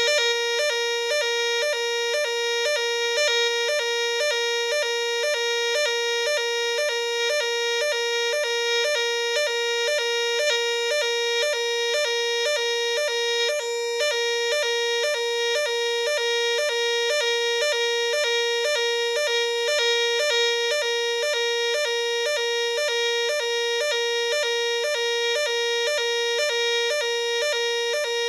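Nugelec 121011 Class B fire alarm sounder sounding the French NF S 32-001 evacuation tone: a loud, piercing electronic two-tone pattern, a short higher note then a longer lower one, repeating about twice a second.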